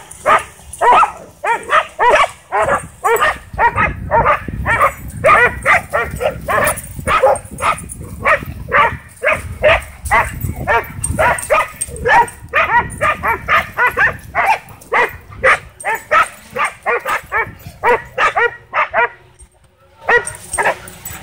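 A pack of dogs barking excitedly and nonstop, several barks a second, with a short pause near the end; they are worked up by a drone flying overhead.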